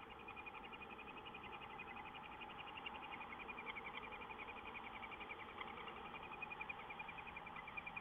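Young barn owl chicks in the nest box chittering at feeding time: a faint, fast, unbroken run of high ticking calls.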